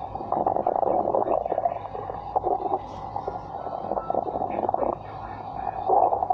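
Stomach growling: long, irregular gurgling rumbles in uneven stretches with short lulls, loudest near the end.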